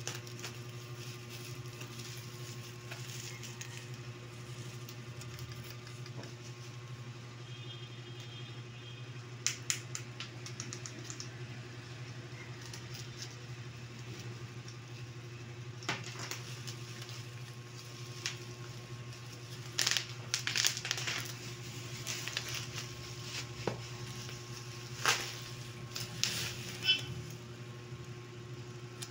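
Plastic packaging and bubble wrap crinkling and rustling in short bouts as a cardboard box of wet wipes is handled, with a few sharp clicks among them, over a steady low hum.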